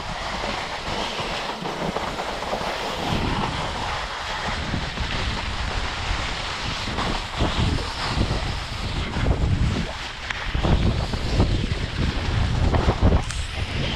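Snow hissing and scraping under a sled sliding downhill, with wind buffeting the microphone in gusts that grow stronger and more frequent over the second half.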